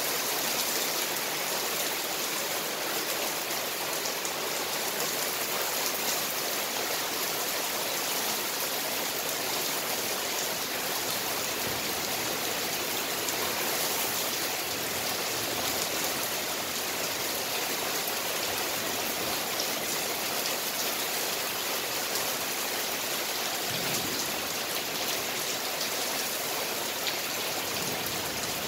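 Rain falling steadily during a thunderstorm, an even hiss with no thunder.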